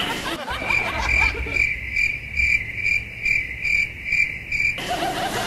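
Cricket chirping sound effect: one steady high chirp repeating about two and a half times a second, starting about half a second in and cutting off suddenly near the end.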